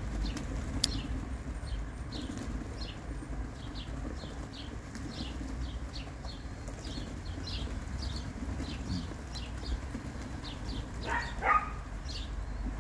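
Flock of racing pigeons at a loft: wings flapping as birds take off and land, over a steady run of short high chirps, about two or three a second. A brief louder call comes about eleven seconds in.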